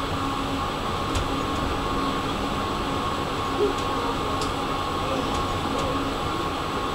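Tram running slowly, heard from inside the vehicle: a steady hum of the drive and wheels on the rails, with a few faint ticks.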